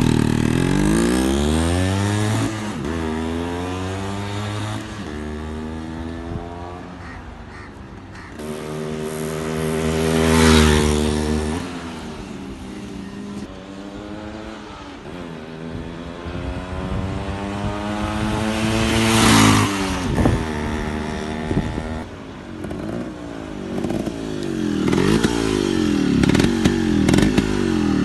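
Yamaha RX 135's single-cylinder two-stroke engine running as the motorcycle is ridden past twice. Each time it gets louder as it approaches, and its pitch drops as it goes by, about ten and twenty seconds in.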